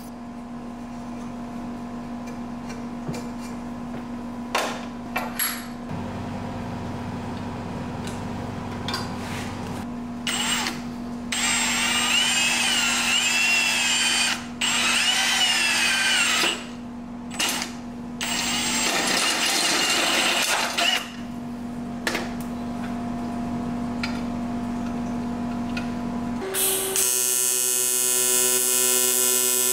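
Cordless power tools working an aluminium intake pipe: a die grinder running, then a drill with a hole saw cutting through the pipe wall with a wavering squeal, in several runs with short stops. Near the end a TIG welding arc starts with a steady buzz.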